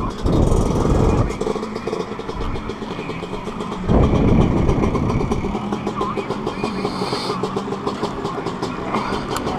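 Several motocross dirt bike engines running at idle close by, with a steady pulsing beat. There are louder surges at the very start and again about four seconds in.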